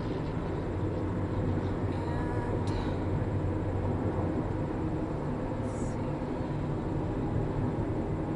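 Steady road and engine noise heard inside a car driving at highway speed, mainly a low, even rumble of tyres on the road.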